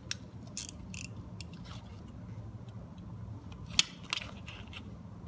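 Utility knife blade scraping and clicking against the interlocked metal armor of TECK cable while its gray plastic jacket is cut and pried off: irregular sharp scrapes, the loudest a little under four seconds in. A steady low hum runs underneath.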